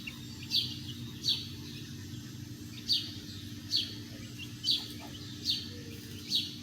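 A bird repeating short, high chirps that slide downward in pitch, about seven of them roughly a second apart.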